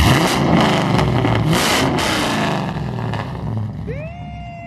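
LS V8 engine of a Nissan 240SX revved hard through its exhaust: the throttle blip hits at once and the revs die back over the next three seconds. Near the end comes a long meow-like cry that rises, holds and falls.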